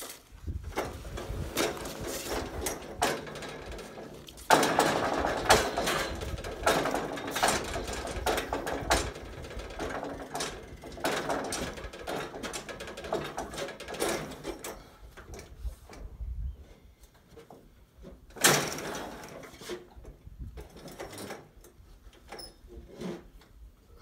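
Irregular knocks, bumps and scraping as a wooden roof truss is handled and swung upright by hand. A loud clatter comes about four and a half seconds in, and a sharp bang near eighteen seconds; the knocks thin out toward the end.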